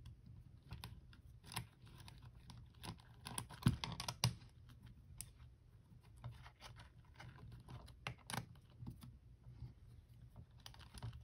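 Faint, irregular small clicks and taps of a hex key, small screws and 3D-printed plastic parts being handled while screws are taken out of a robotic actuator's output hub.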